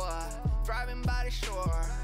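Background music with a steady kick-drum beat, about one kick every half second or so, under a sustained melody.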